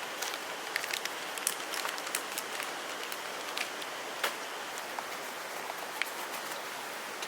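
Wood fire burning in a fire pit, crackling with irregular sharp pops over a steady hiss.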